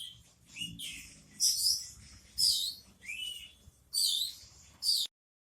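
Oriental magpie-robin (kacer) singing a continuous rolling song of short, high, varied whistled phrases with mimicked notes mixed in. It cuts off abruptly shortly before the end.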